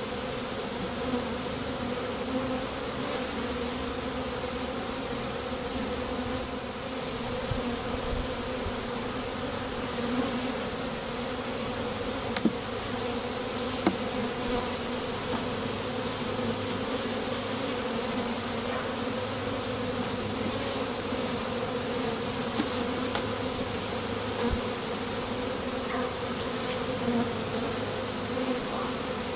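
A mass of honey bees from a freshly shaken package buzzing in a dense, steady hum, with a few faint clicks along the way.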